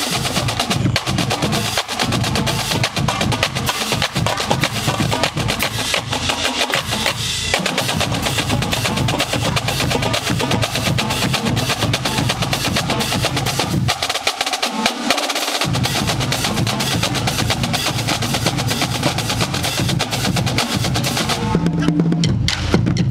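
College marching drumline playing a dense, fast cadence on snare drums, tenor drums and bass drums, with rolls. The bass drums drop out for a moment about two thirds of the way in, and the snares stop briefly near the end while the low drums go on.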